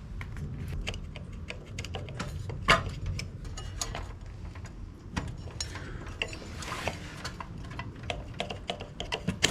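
Irregular metallic clicks and clatter of tools working on the motorcycle's clutch during its removal.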